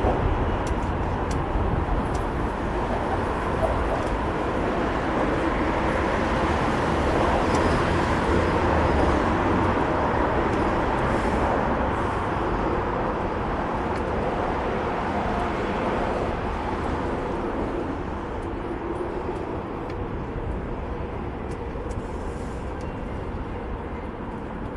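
Steady rush of wind over a bike-mounted action camera's microphone while riding at speed, mixed with motor traffic on the bridge roadway alongside; it grows a little quieter over the second half.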